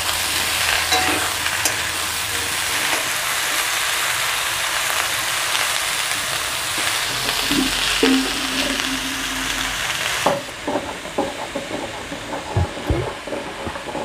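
Cut vegetables (potato, brinjal, pointed gourd and ridge gourd) sizzling steadily as they fry in mustard oil in an aluminium kadai. About ten seconds in, the sizzle cuts off abruptly. Scattered knocks and scrapes follow, from a stone muller worked over a wet grinding stone.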